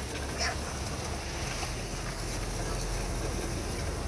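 Fishing boat's engine running steadily under way, with wind and water noise on the microphone. One short call about half a second in.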